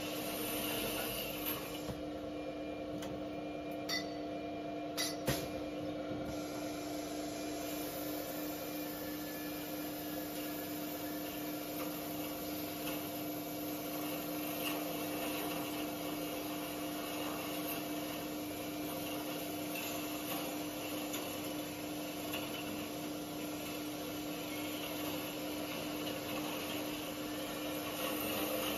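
CNC double-head tube end boring and chamfering machine running with a steady hum, with a couple of sharp clicks about four and five seconds in.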